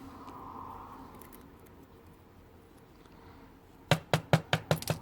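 Small metal lock parts being handled as a pin-tumbler lock is gutted from the top, with its top pins and springs coming out: a quick run of about six sharp metallic clicks near the end.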